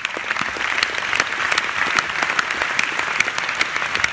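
Audience applauding: dense, steady clapping from a large crowd, starting just before and holding at an even level.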